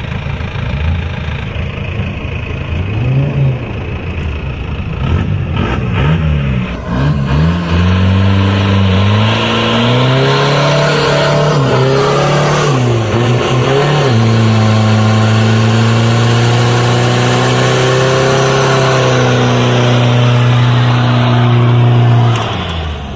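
Isuzu TFR diesel pickup doing a burnout. After a few short revs, the engine climbs about eight seconds in and is held high and steady while the rear tyres spin in place, then drops away near the end.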